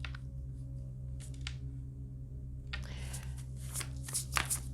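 Tarot cards being handled: a couple of brief card slides, then a flurry of card rustling and flicking from about three seconds in, over a steady low hum.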